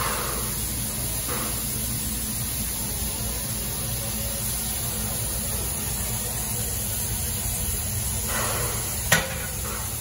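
Steam locomotive standing at rest and hissing steadily, with one sharp metallic clank about nine seconds in.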